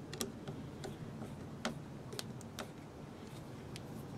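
A handful of sharp, irregular clicks and taps of a hand handling the 12-volt oil extractor pump's hose and hose clamp, over a low steady hum.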